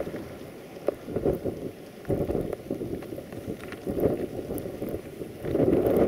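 Blizzard wind buffeting the microphone in uneven gusts, easing through the middle and swelling again near the end.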